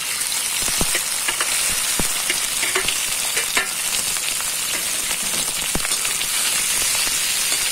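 Boiled potato pieces dropped into hot oil with cumin seeds and dried red chillies in a kadhai: a loud sizzle starts abruptly as they go in and holds steady, with scattered crackles.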